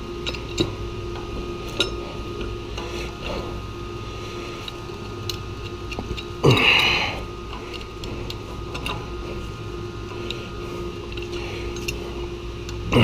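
Metal hand tools being handled on a steel boiler top: scattered light clinks and knocks, with one louder clatter about halfway through, over a steady low hum.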